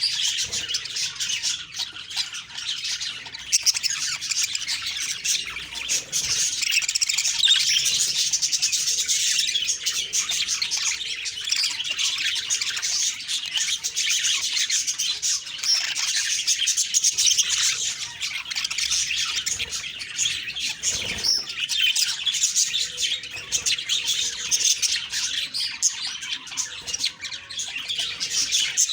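Pet budgerigars chirping and chattering without a break: a dense stream of high warbles, chirps and squawks.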